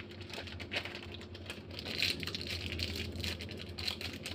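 Clear plastic mooncake packaging crinkling and crackling in quick, irregular small clicks as it is handled and opened by hand, over a faint steady low hum.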